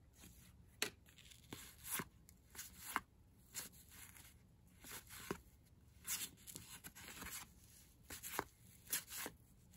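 1987 Topps cardboard baseball cards being flipped through by hand, each card sliding off the stack with a faint brushing flick, unevenly spaced about every half second to a second.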